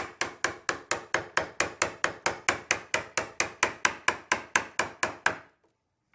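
Hammer tapping a wood chisel in a fast, even rhythm of about five blows a second, carving shavings out of a door edge for a hinge mortise; the tapping stops about five seconds in.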